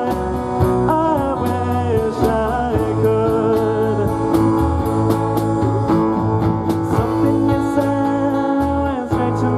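Live band playing a song: acoustic and electric guitars, electric bass and drum kit, through a PA.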